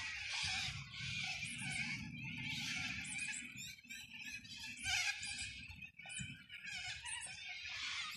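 Insects calling in a run of short, high-pitched bursts, roughly one a second.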